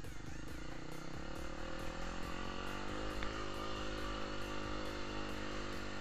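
Motorcycle engine running, its pitch wavering up and down with the throttle around the middle.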